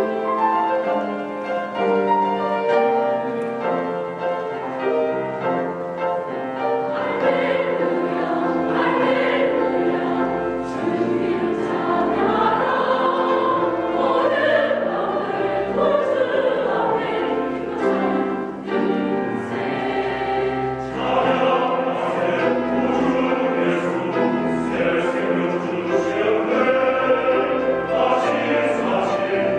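Mixed church choir singing a sacred anthem in several parts, starting abruptly and continuing without a break.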